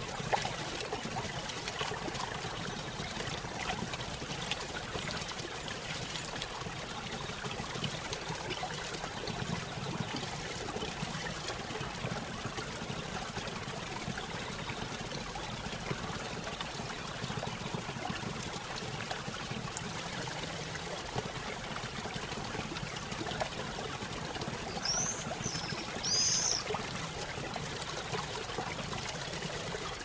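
Waterfall rushing steadily. A bird chirps twice briefly near the end.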